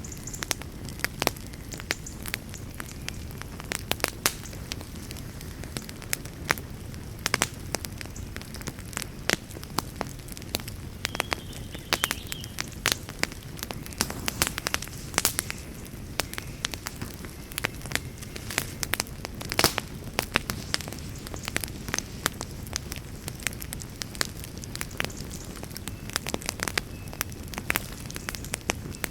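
Wood fire burning with frequent irregular sharp crackles and pops over a steady low rumble of flame.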